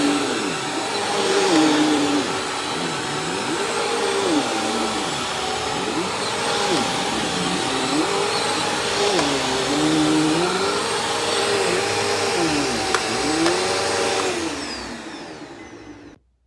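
Bissell CleanView 2254 upright vacuum running on thick carpet. Its motor whine dips in pitch and recovers over and over as it works, then fades near the end and cuts off suddenly.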